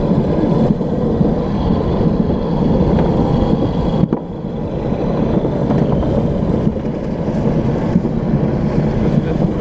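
Luge cart rolling fast down a concrete track: a steady rumble of the wheels on the surface, with wind buffeting the microphone. The rumble briefly drops about four seconds in.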